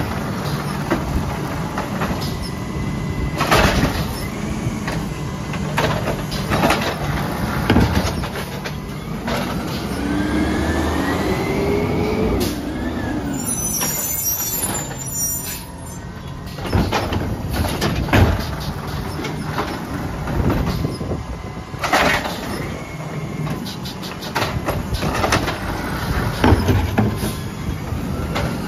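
Peterbilt 320 automated side-loader garbage truck emptying curbside carts: the engine runs steadily and revs up with rising whines as the hydraulic arm lifts, and there are several loud bangs as carts are shaken out into the hopper and set back down.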